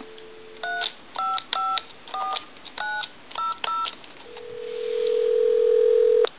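Dial tone from a repaired duck telephone's line cuts off as seven touch-tone (DTMF) digits are keyed in on the handset keypad: seven short two-note beeps over about three seconds. A steady ringback tone then swells for about two seconds and ends in a click as the number answers.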